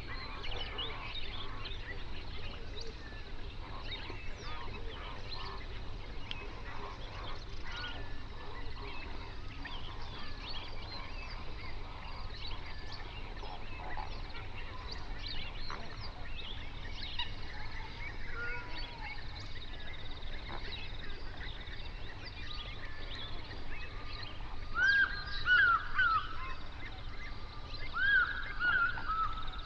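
A flock of flamingos calling: a constant chatter of many short goose-like calls, with louder honking calls in two clusters near the end.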